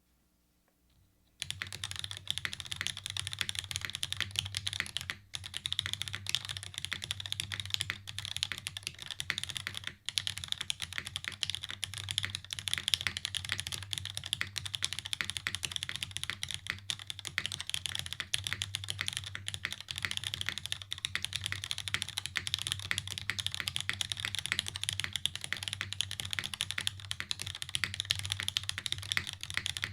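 Fast, continuous typing on a custom tenkeyless mechanical keyboard with diamond-polished, Tribosys-lubed Cherry MX Black linear switches on a top-mounted aluminium plate, with no dampening and GMK keycaps. The typing starts about a second and a half in and runs densely, with brief pauses near the five- and ten-second marks.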